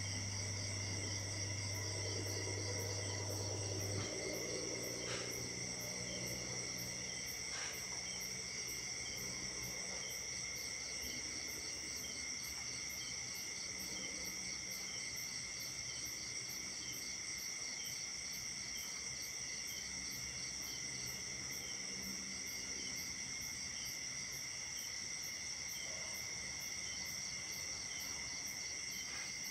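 Night chorus of crickets and other insects: several steady shrill trills at different pitches, with a very high chirp pulsing about twice a second. A low steady hum stops about four seconds in.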